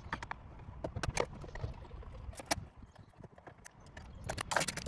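Irregular clicks and knocks of a screwdriver and screws against hard plastic as the four Phillips screws holding a car radio in the dash are taken out, with a busier run of clicks near the end.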